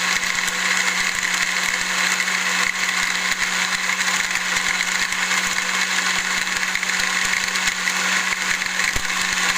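Electric kitchen blender running steadily, blending fruit with a little water, with a steady motor hum under the whirr; it cuts off suddenly at the end as it is switched off.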